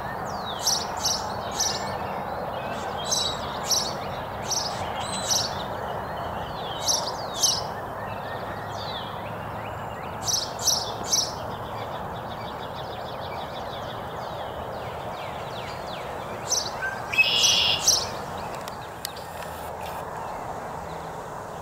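American goldfinches calling: short, high notes that sweep downward, mostly in quick groups of two or three, every couple of seconds, with a faint rapid twitter in the middle and a louder run of calls near the end. A steady background noise runs underneath.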